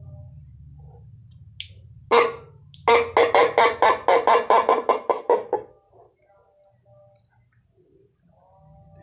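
Homemade tin-can friction drum, a used milk can with a jute string knotted through a hole in its middle, sounded by pulling the string through the fingers. It gives one short squawk about two seconds in, then a fast, even run of rasping pulses, roughly six a second, for nearly three seconds. The string is still untreated, without kerosene, and the sound is counted not very good yet.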